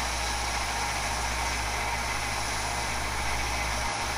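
A 2x72-inch belt sander driven by a 1.5 horsepower motor, running steadily while a steel knife blade is held against the belt to flatten its sides: an even motor hum under the hiss of metal grinding on the abrasive belt.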